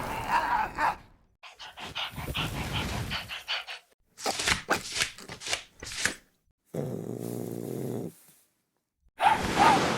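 Dog growling and barking in several short, separately cut bursts with sudden silences between them, including one steady growl of a second or so near the middle.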